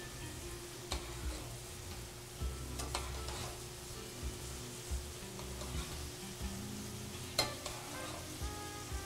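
Chicken breasts frying in butter and oil in a pan, a steady sizzle. Three light metal clinks sound about one, three and seven seconds in, as metal tongs lift fresh pasta into a mesh strainer over the pot.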